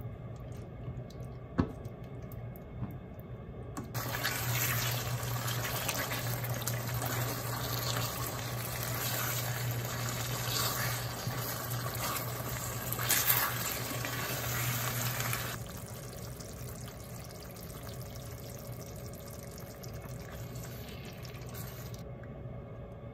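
Sauce bubbling and spattering in a pan as a ladle stirs in potato-starch slurry to thicken it, over a steady low hum. The bubbling is loudest from about four seconds in until about two-thirds of the way through, then drops to a quieter simmer; a couple of light ladle taps come early on.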